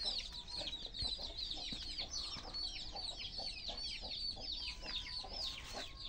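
A brood of chicks peeping without pause, many short, high, falling cheeps a second, with a hen clucking low beneath them.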